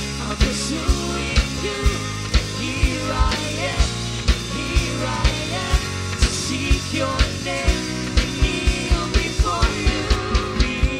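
Live worship band playing a full-band rock arrangement, the drum kit's kick keeping a steady beat of about two hits a second that quickens near the end.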